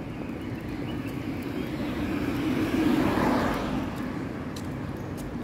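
A car passing on the road, its engine and tyre noise swelling to a peak about three seconds in and then fading away.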